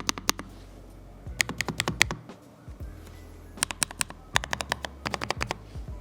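Typing on a Lofree low-profile mechanical keyboard: four short, quick runs of key clicks with brief pauses between them, over background music.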